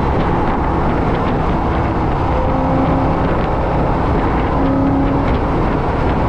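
Wind and road noise rushing over a front-mounted camera on a car at speed, with an engine note faintly underneath at a steady pitch.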